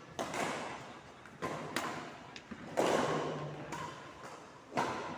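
A rally in a racquet or ball game on an indoor court: a quick run of sharp ball strikes at uneven intervals, each echoing around a large hall.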